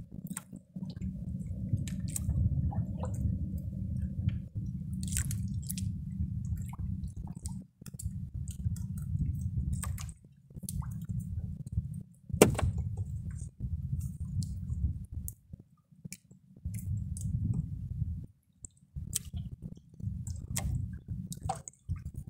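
A fishing net being handled as a fish is picked out of its mesh, with small scattered clicks and rustles and one sharper knock about halfway through. Under it runs a low rumble that comes and goes in stretches of a second or more.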